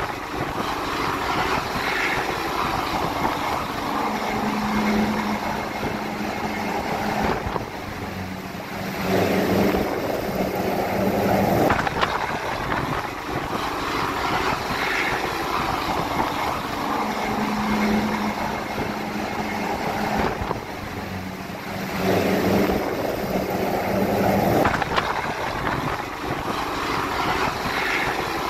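Search-and-rescue helicopter hovering, its rotors and engines running as a loud, steady noise with a low hum that swells and dips every several seconds.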